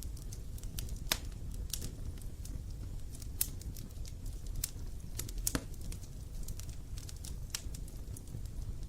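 Wood fire crackling: irregular sharp pops and snaps over a steady low rumble of the burning, with louder pops about a second in and near the middle.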